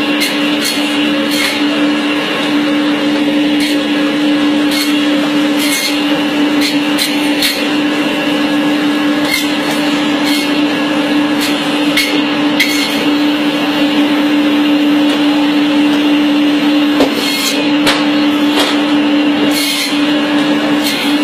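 Electric band-saw meat cutter running with a steady motor hum, with scattered sharp clicks as pieces of meat are fed through the blade.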